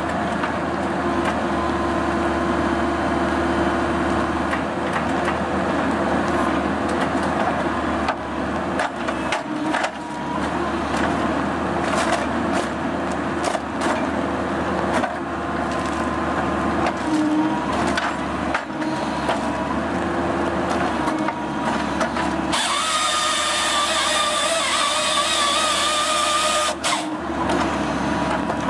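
Excavator-mounted firewood processor head working logs: steady engine and hydraulic noise with wood cracking and knocking. About three-quarters of the way in, a higher wavering whine with a hiss comes in for about four seconds, then stops.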